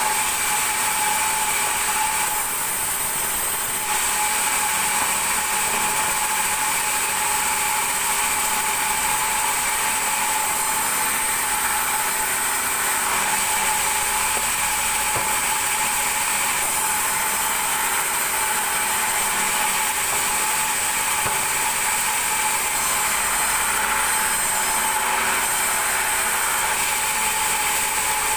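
Large vertical band saw running steadily with a constant high whine, its blade ripping thick timber planks as they are fed through. The cutting noise eases briefly about two seconds in, then carries on.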